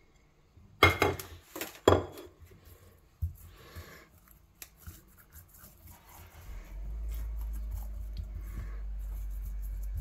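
Two sharp knocks of a ceramic plate being handled, about one and two seconds in, then faint rubbing and small ticks of hands working chopped herbs into raw rabbit meat. A steady low hum starts about two-thirds of the way through.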